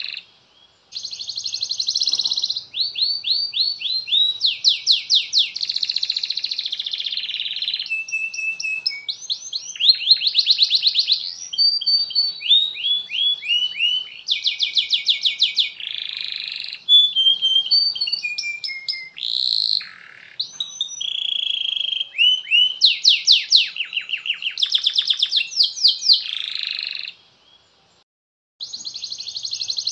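Domestic canary singing a long song of fast trills and rolls, phrase after phrase of rapidly repeated notes, with brief pauses near the start and near the end.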